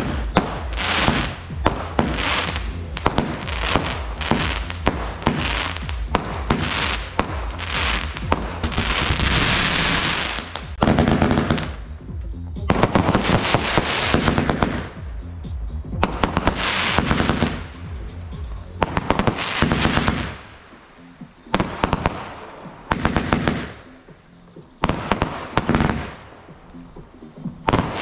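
Consumer fireworks going off: rapid bangs and crackling, with a longer hiss about nine seconds in. In the second half the bangs come in separate volleys. Background music plays underneath.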